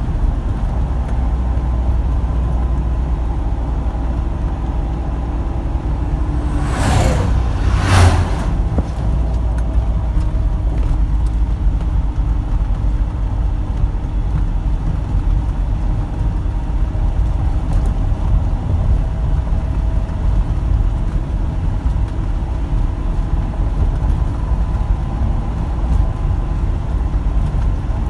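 Steady low engine and road rumble heard from inside a truck cab driving a rough, patched road. About a quarter of the way in, two oncoming vehicles rush past, one after the other about a second apart.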